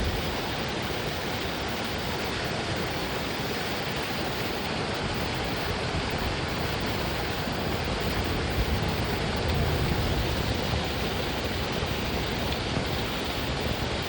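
Steady, even rushing noise with no distinct tones or knocks, slightly stronger about two-thirds of the way through.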